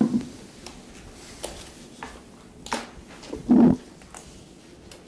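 Desk-microphone handling noise in a quiet room: paper rustling and a few sharp clicks, with a short low thump about three and a half seconds in as the loudest sound.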